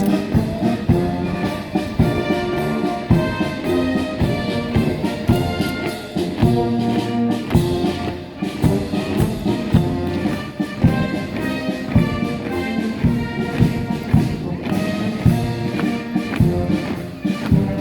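Military brass band playing a march, with brass instruments carrying the tune over a steady drum beat.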